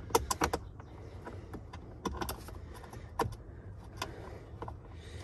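Sharp plastic clicks and taps as the 2021 Honda Accord's lower dash trim and its fasteners are fitted back under the glovebox by hand. A quick cluster of clicks comes at the start, then single clicks about once a second, over a low steady hum.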